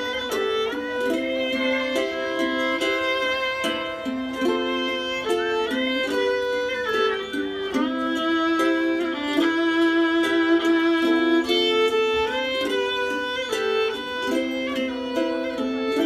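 Violin playing a melody, note after note, with one longer held note about halfway through.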